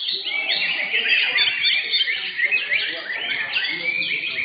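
Several greater green leafbirds (cucak hijau) singing at once, a dense, unbroken tangle of rapid chirps, whistles and quick up-and-down sweeps, with a low murmur of voices underneath.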